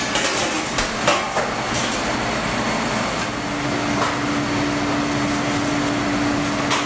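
Cafeteria serving-line noise: a string of clinks and knocks from metal pans and serving utensils, most of them in the first couple of seconds, over a steady room hum. A steady low hum joins about halfway through.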